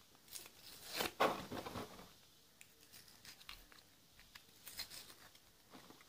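Crinkling and rustling of small plastic and paper toy packaging handled in the fingers as the capsule holding a doll's yo-yo is opened, in short irregular bursts with small clicks. The loudest burst comes about a second in.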